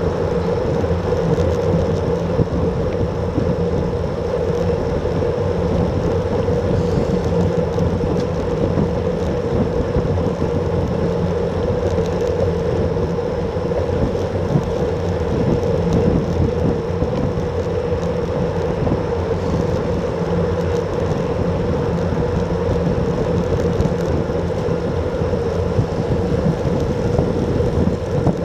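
Steady rush of wind and road noise picked up by a bike-mounted action camera on a road bike riding at about 30–35 km/h.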